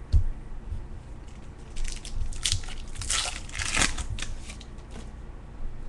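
Baseball cards and foil pack wrappers being handled on a table: rustling and crinkling for a few seconds, with a thump just after the start.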